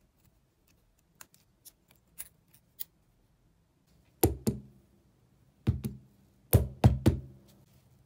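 The brushed DC motor of a Makita 6270D cordless drill is being taken apart by hand. First come a few light clicks of small parts, then a string of six loud knocks, each with a short ring, as the steel motor can and its end cap are handled and knocked against the workbench.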